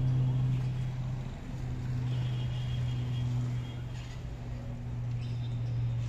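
A steady low hum, with faint higher tones about two seconds in and again near the end.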